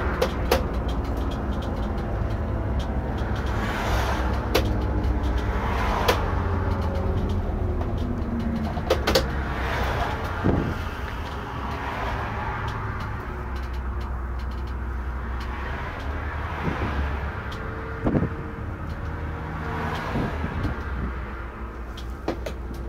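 Irisbus Récréo II coach driving along, heard from the driver's seat: a steady low engine and drivetrain hum whose pitch rises and falls several times, with scattered knocks and rattles from the body over the road.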